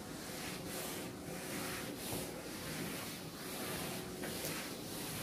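Board duster wiped back and forth across a chalkboard, erasing chalk in a steady run of strokes, about two a second.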